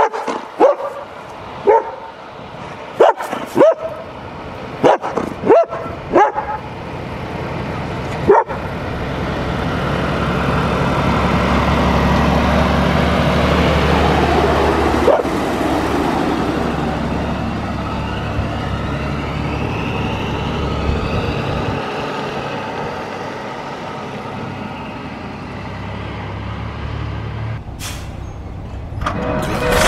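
A dog barks about ten times in the first several seconds. Then a Škoda Liaz tipper truck's diesel engine approaches and passes, loudest about halfway through and fading afterwards.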